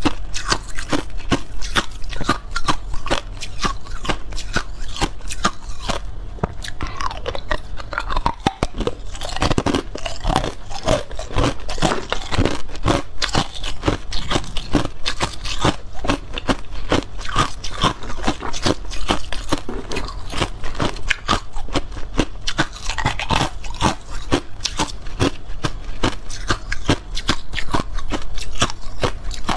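Clear ice cubes crunched and chewed close to a lapel microphone: a dense, unbroken run of sharp cracks and crunches, several a second.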